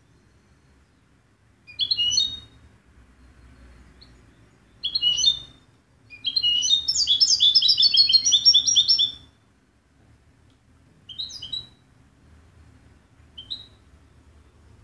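Caged European goldfinch singing in high, twittering phrases: short bursts about two and five seconds in, a rapid run of song lasting about three seconds from around six seconds, then two brief notes near the end.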